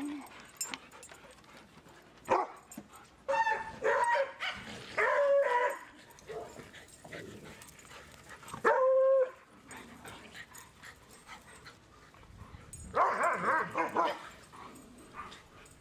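Dogs barking and yelping as they play together, in separate outbursts: a run of barks a few seconds in, one strong bark near the middle, and another cluster near the end.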